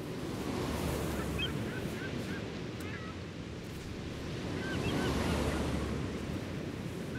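Ocean surf washing in as a steady rushing hiss that swells about a second in and again about five seconds in. Short bird calls chirp faintly over it, in small clusters.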